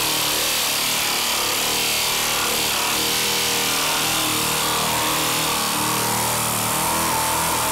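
Dynabrade 18066 pneumatic straight-line sander running steadily as its pad is pushed back and forth over body filler on a car panel.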